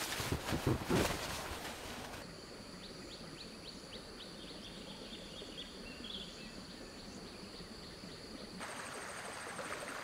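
Rustling and handling noises for about two seconds, then outdoor ambience: a steady high insect drone with a run of short bird chirps. About eight and a half seconds in it changes to a fast pulsing insect trill.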